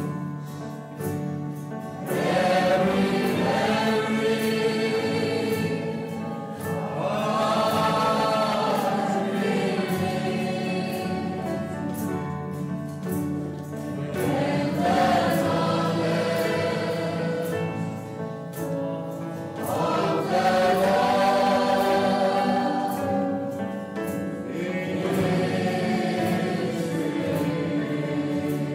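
A choir singing sacred music in long held phrases, each swelling and fading over about five seconds.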